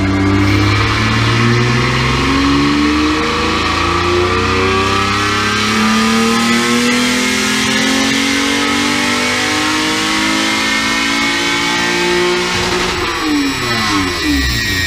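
Toyota 2GR-FE 3.5-litre V6 engine in an MR2-based car pulling under load, its pitch climbing steadily for about twelve seconds, then dropping sharply near the end.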